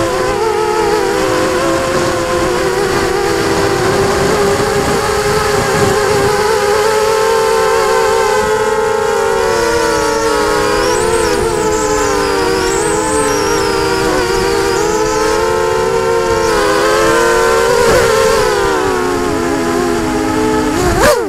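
Multirotor drone's electric motors and propellers whining as heard from its onboard camera, the pitch wavering up and down with throttle. Just before the end the pitch falls steeply and the motors cut out.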